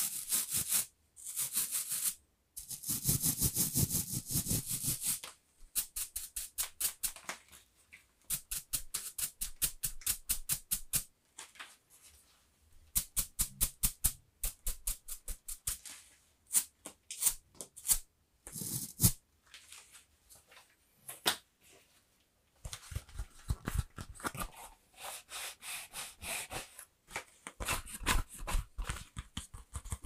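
Close-miked ASMR tapping and scratching on household cleaning tools. It starts with a few seconds of scratchy brushing, then long runs of quick taps, several a second, with short pauses between them.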